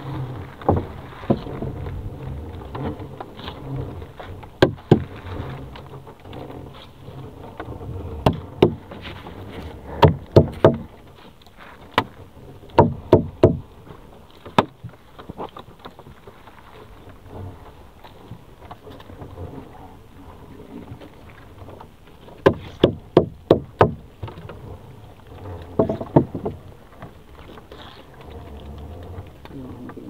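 Gill net being hauled by hand over the gunwale of a small wooden fishing boat: clusters of sharp knocks as the net's floats and weights strike the hull, over a low steady rumble.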